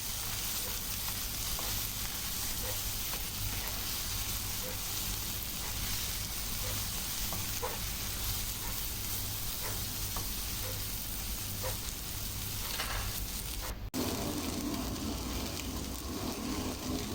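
Onions sizzling steadily as they fry lightly in a little oil in a pan, with occasional faint clicks.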